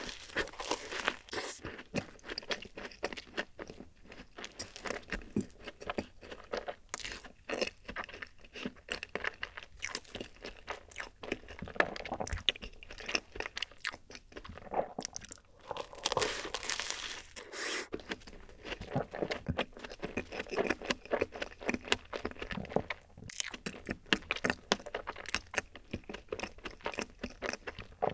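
Close-miked crunching and chewing of a cream-filled dacquoise, its crisp meringue shell crackling with each bite. The crunching comes in dense runs, loudest right at the start and again about halfway through.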